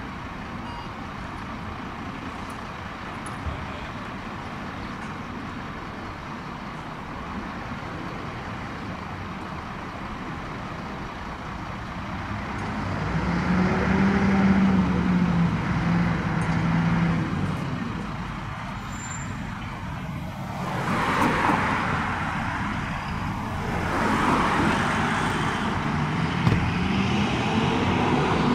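Diesel fire trucks pulling out of the station and driving off: a low engine note rises and steps down about halfway through, then two louder rushes of a truck accelerating past follow in the second half.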